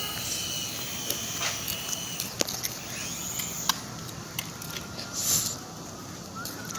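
Small RC toy helicopter's electric motor and rotor whirring as it is flown, with scattered sharp clicks and taps and a brief rushing noise about five seconds in.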